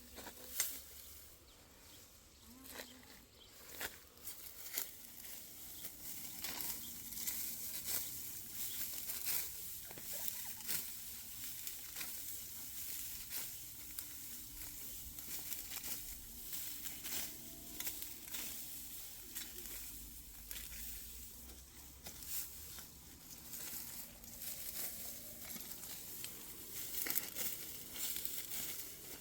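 Irregular dry rustling and crackling with scattered sharp clicks, as of dry material being handled or crushed.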